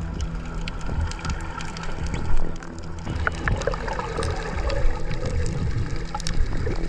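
Underwater sound of water moving and gurgling around the camera, a low rumble with many scattered sharp clicks.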